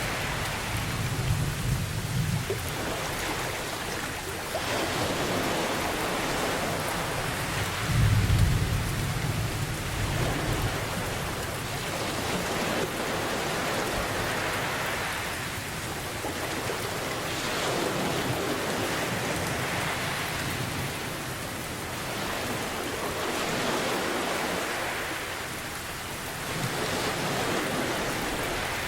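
Steady heavy rain with thunder rumbling low, once at the start and again about eight seconds in, while ocean waves swell and wash back every few seconds.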